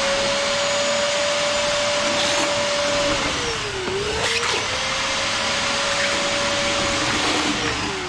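DeWalt 38-litre wet and dry vacuum running at full power and sucking up water from buckets: a loud steady motor whine. Its pitch dips about halfway through and recovers, and near the end the motor winds down with a falling whine as it is switched off.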